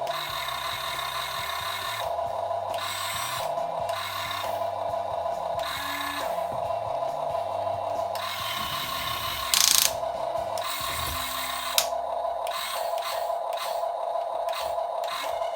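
Small electric gear motors of a Huina 1550 RC excavator whirring and grinding, stopping and starting as different functions are run, with a short loud rasp about two-thirds of the way through.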